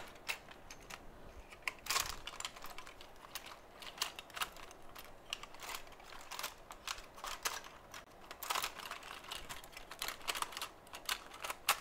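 Irregular small clicks and taps of tools and small hard objects being handled on a workbench, while a new blade for a hobby knife is looked for.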